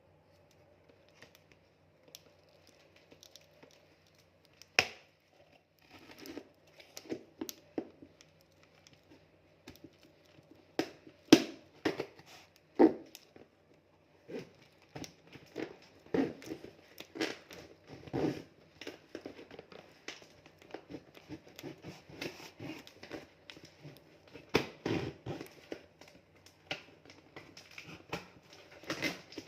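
Parcel packaging being handled and torn open by hand: irregular crinkling, crackling and tearing, with a few sharper rips among them.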